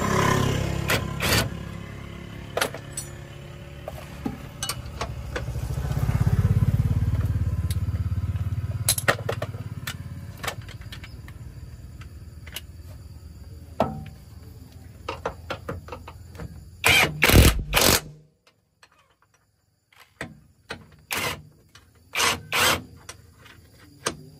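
A vehicle engine running with a low rumble that swells about six seconds in, under scattered metallic knocks and clicks. The rumble cuts off suddenly about 18 seconds in; a few sharp clanks follow.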